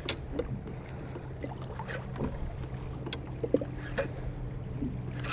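A spinning reel being cranked to retrieve a jig, with small splashes of water lapping against a plastic kayak hull and scattered light clicks, over a steady low hum.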